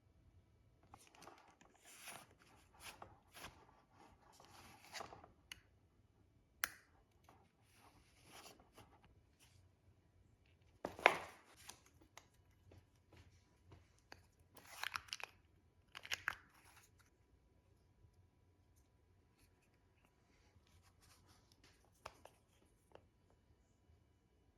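Packaging being handled and opened in an unboxing: faint, irregular rustling and tearing. The loudest scrape comes about eleven seconds in, and the sounds thin out to a few light touches near the end.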